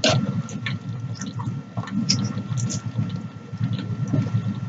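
Wet, squishy chewing of cheesy noodles close to the microphone, with short sharp clicks of a fork against the bowl as more noodles are twirled up; the loudest click comes right at the start.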